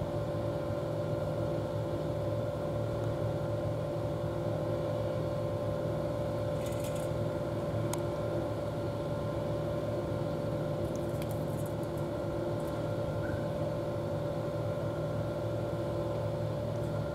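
Steady mechanical hum of a motor or engine running, several even tones held without change. A few faint, brief high ticks come about halfway through.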